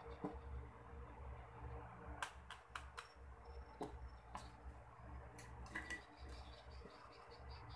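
Faint clicks and taps of hard plastic being handled: a small clear plastic cup, then the flip cap of a plastic bottle being opened. There is a quick cluster of sharp clicks a little after two seconds in, over a low steady hum.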